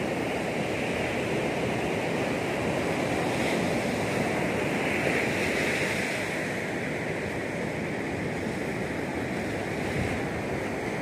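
Sea surf washing onto a sandy beach: a steady wash of breaking waves that swells a little midway, with wind rumbling on the phone's microphone.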